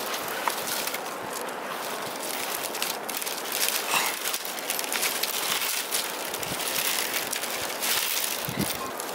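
Thin bamboo strips crackling, clicking and scraping against each other as a basket is woven by hand, an irregular run of small dry clicks over a rustle.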